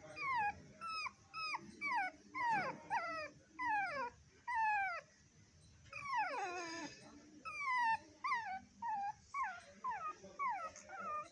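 Shih Tzu puppy whimpering: a run of short, high whines that each slide down in pitch, about two a second, with a longer falling whine about six seconds in.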